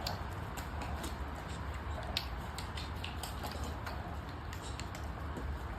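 Scattered light clicks and ticks, irregularly spaced, over a steady low hum; the sharpest click comes about two seconds in.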